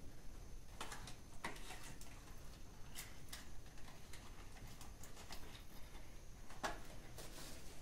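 Scattered light clicks and rustles of cardboard medicine boxes and paper leaflets being handled, a handful of separate taps spread unevenly.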